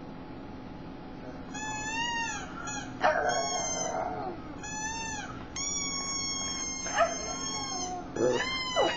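A pug whining and howling in a series of high, wavering cries, with one long held cry in the middle and a few short, sharp yelps.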